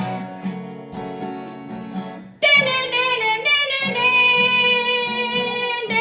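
Acoustic guitar strumming the song's closing chords. About two and a half seconds in, a girl's voice comes in loudly on one long held sung note over the guitar.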